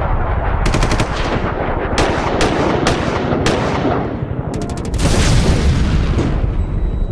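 Channel-intro sound effect: a fast, even train of pulses with sharp cracks over it, like automatic gunfire, swelling to a louder burst about five seconds in and then fading.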